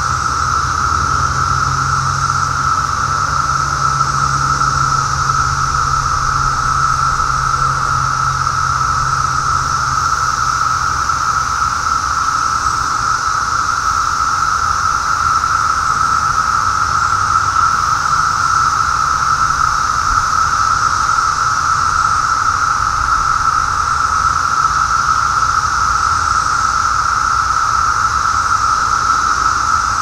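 Dense chorus of Brood X periodical cicadas: a steady, unbroken drone.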